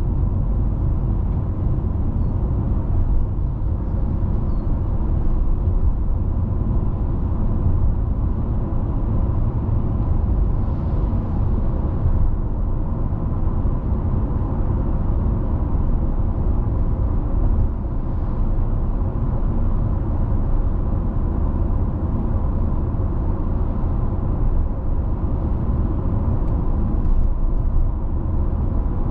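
Car driving along at a steady speed: a continuous low rumble of engine and tyres on the road, with no sudden changes.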